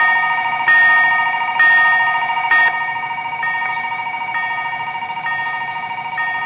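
Warning bells of a Korean railway level crossing ringing continuously in a fast, even, repeating ding. In the first three seconds several louder strikes about a second apart stand out, then the ringing goes on at a steady level.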